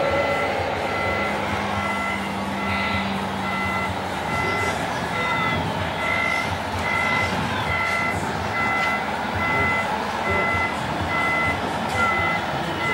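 Reversing beeper of a radio-controlled scale construction model, a steady beep repeating about twice a second over continuous vehicle noise.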